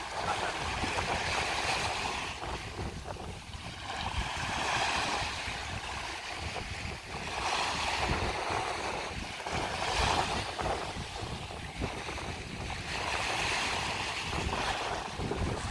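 Small sea waves washing onto the shore, swelling and easing every few seconds, with wind buffeting the microphone.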